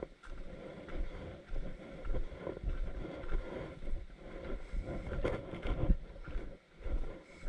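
A hiker's footsteps on a dirt trail, soft thumps about twice a second, with wind rumbling on the microphone.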